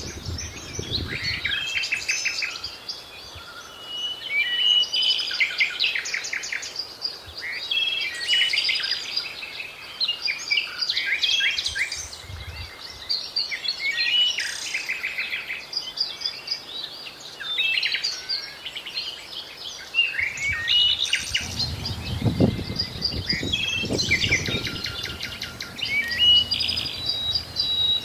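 Several birds chirping and trilling together in a busy, continuous chorus of short, overlapping calls. A low rumble joins in about two-thirds of the way through.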